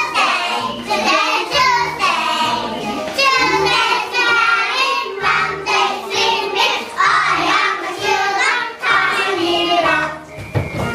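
A group of young children singing a song together in English over musical accompaniment. The singing stops near the end.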